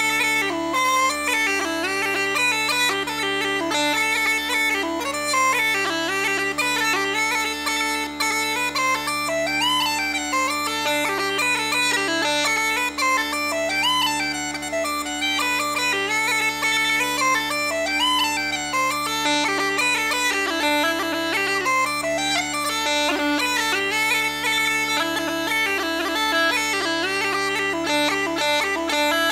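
Uilleann pipes playing a four-part jig solo: the chanter's melody moves quickly over the steady, unbroken tone of the drones.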